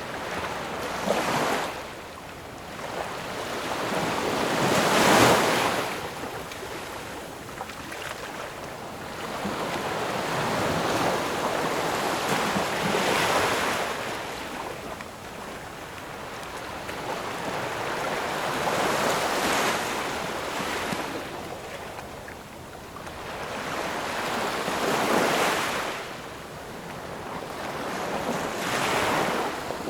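Ocean waves breaking, the surf rising and falling in about six surges a few seconds apart. The loudest comes about five seconds in.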